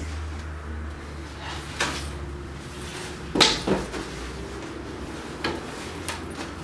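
A few knocks and thumps, the loudest about three and a half seconds in, over a low hum that fades out about halfway through.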